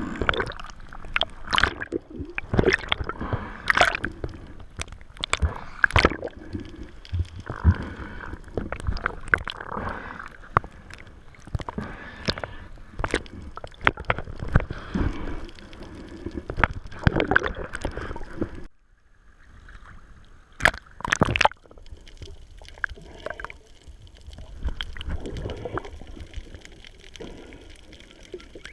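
Water sloshing and gurgling, with many irregular sharp knocks and clicks. About two-thirds of the way through it drops off abruptly. Two more sharp knocks follow, then a quieter wash of water.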